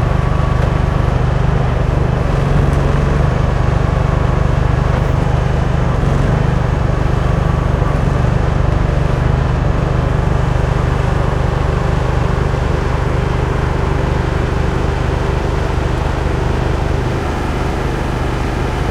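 Delivery truck's engine running steadily with a low drone, its pitch shifting slightly a few times.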